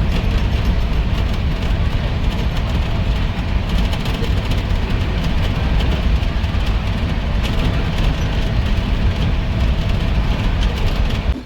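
Passenger train running along the line, heard from aboard a coach: a steady, loud rumble of the moving carriage, with faint scattered clicks.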